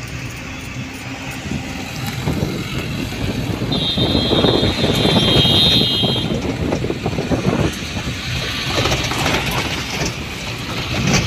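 Engine and road noise from inside a moving vehicle, swelling louder about four seconds in. A thin steady high tone sounds for about two seconds near the middle.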